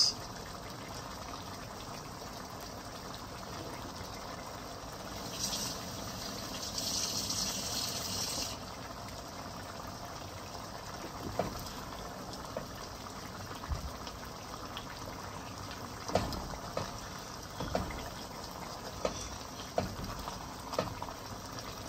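Pot of egusi soup simmering, a steady low bubbling. A brief high hiss comes about six seconds in, and scattered soft pops and knocks follow through the second half.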